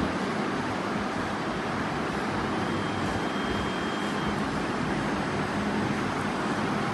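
3D printer running, its cooling fans making a steady even whirr, with a faint high whine for a second or two about three seconds in.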